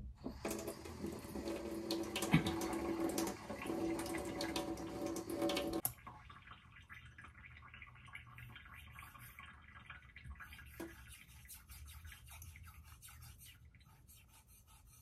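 Water runs or pours for about six seconds and stops suddenly. A fainter, quick repeated scraping follows: a scissor blade being sharpened on a 6,000-grit whetstone.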